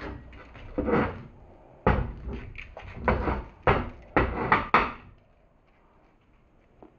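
A string of irregular knocks and short scraping clunks, about half a dozen, as parts are handled and set down. It goes much quieter a little after halfway.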